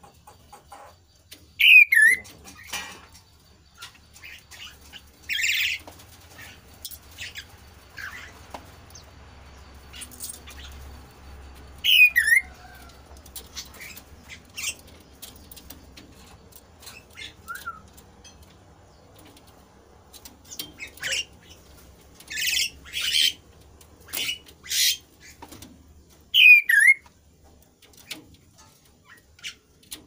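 Caged kasu-kasu songbird calling in a lively bout: three loud short whistles that drop sharply in pitch, spaced well apart, between harsh raspy chattering notes, most of them bunched together in the last third.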